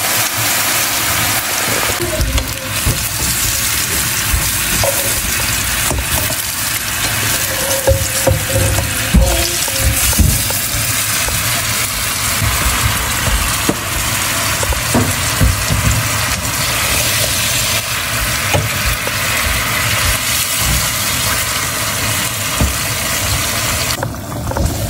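Spiced curry gravy sizzling and bubbling in a frying pan, with scattered knocks and scrapes of a wooden spatula stirring it.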